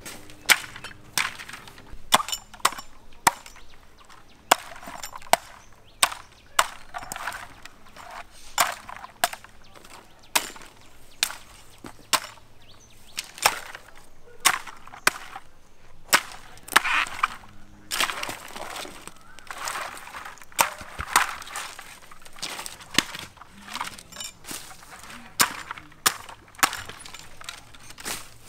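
Machete chopping at harvested coconut bunches, cutting through the stalks and dry fronds. The sharp blows come at an irregular pace of about one or two a second.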